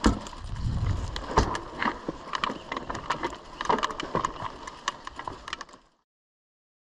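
E-mountain bike rattling and clicking as it rolls slowly over a rough gravel path, with irregular knocks from the frame and components. The sound cuts off abruptly near the end.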